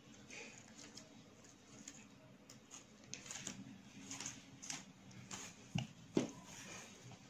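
Faint crinkling and rustling of a folded paper butterfly being handled, with two short soft knocks a little before the end as it is pressed onto the table.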